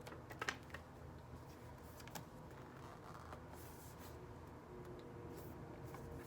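Faint handling noise of a telescoping lamp stand being pulled out: a few sharp clicks near the start and about two seconds in, then soft scraping and rustling.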